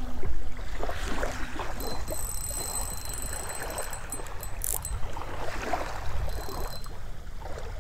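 Small waves lapping and washing at the water's edge close to the microphone, with a low wind rumble.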